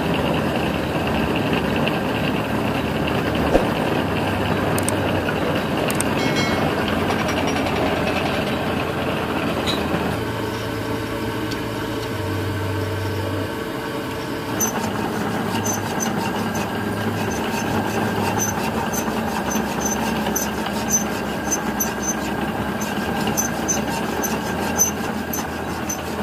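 Metal lathe running, its four-jaw chuck spinning a motorcycle bar-end insert while a cutting tool takes metal off to reduce the insert's diameter so it fits the handlebar. From about halfway through, light ticks come about twice a second over the machine noise.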